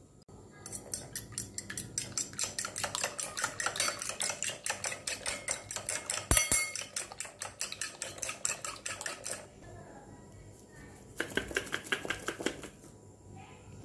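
Metal fork whisking eggs in a ceramic bowl: fast, even clinking of the tines against the bowl, about five clinks a second, for roughly nine seconds, with one dull knock midway. After a short pause, another brief burst of clinking near the end.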